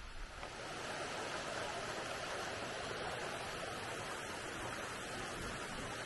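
Shallow mountain stream running over rocks: a steady rushing of water that grows a little louder about half a second in.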